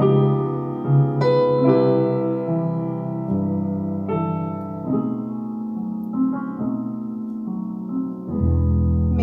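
Piano playing a slow ballad introduction: sustained chords struck about once a second, each left to ring and fade.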